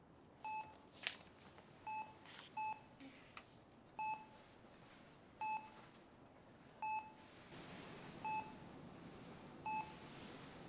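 Bedside hospital heart monitor beeping steadily, one short high beep about every one and a half seconds, with a sharp click about a second in.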